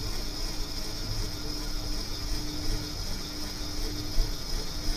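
Steady wind and sea noise on an open boat, with an uneven low rumble of wind on the microphone and a constant high hiss.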